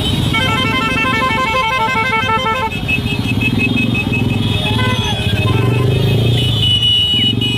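Many motorcycles running in a slow-moving rally crowd, with a horn beeping rapidly, about three to four beeps a second, for the first couple of seconds. A single high, held horn tone sounds near the end, over voices in the crowd.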